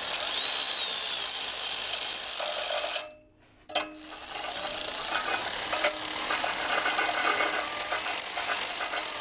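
Cordless electric ratchet running as it backs out a spark plug, with a steady high motor whine. It stops about three seconds in, a click follows, then it runs again.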